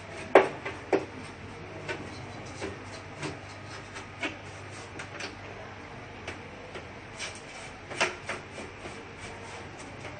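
Brushing out the inside of an opened Epson LQ-2190 dot-matrix printer. Irregular clicks and knocks come from the brush and hand striking the printer's frame and carriage, loudest about half a second in and again around eight seconds.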